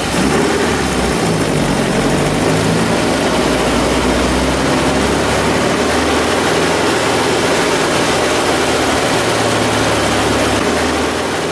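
Naturally aspirated VW Beetle 1600 air-cooled flat-four, with modified cam and cylinder heads, running hard at high revs, around 6,000 rpm, during a dynamometer power run. The loud, steady engine note starts abruptly and begins to back off about eleven seconds in.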